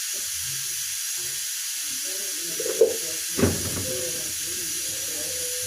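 Steady hiss throughout, with a sharp click a little under halfway and a knock about half a second later: objects being handled and set down.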